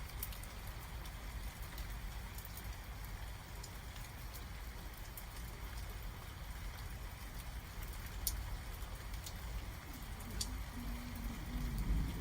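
Rain falling steadily during a thunderstorm, with scattered sharp drop ticks over a low rumble. Near the end a faint low hum rises underneath.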